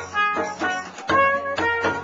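Small live band playing: a trumpet over rhythmic strummed guitar chords.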